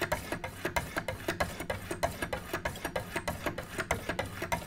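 Wicked Edge guided sharpener's 800-grit diamond stones rasping along a knife edge in quick alternating left and right strokes, about four a second.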